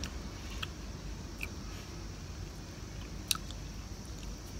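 Faint mouth sounds and small clicks of someone eating gelato with a small plastic spoon, with one sharper click about three seconds in, over a low steady background hum.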